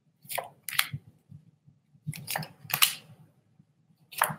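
Tarot cards being shuffled and handled: several short, sharp snaps and swishes with short pauses between them.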